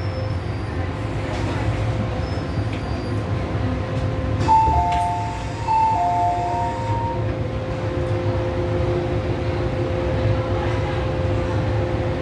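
MTR M-Train standing at a platform with a low rumble and a steady hum. About four and a half seconds in the doors slide open with a hiss of air, and a two-tone high-low door chime sounds twice.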